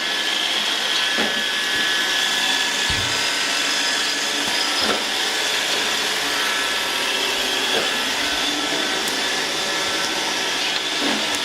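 iRobot Roomba robot vacuum running with a steady whir, its refitted motor turning normally: the repair has worked.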